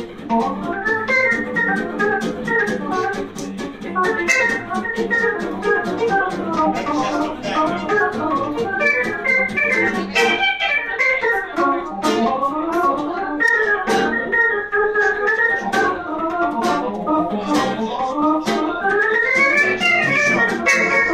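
A small live band of accordion, violin, archtop guitar and double bass playing, the accordion's reedy, organ-like sound to the fore, over a steady rhythmic beat.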